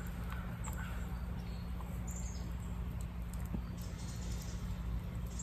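Short, high bird chirps, a few at a time, over a steady low hum, with a few faint clicks.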